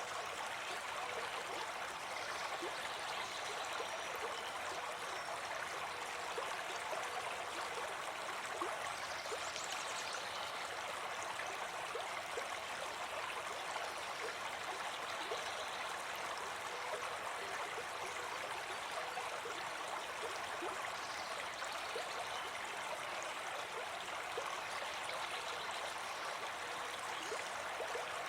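A brook babbling steadily: an even rush of running water.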